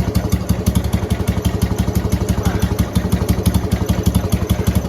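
Gravely tractor engine running steadily just above idle, with an even, rapid firing beat. Its replacement Chinese carburettor runs really rich at idle.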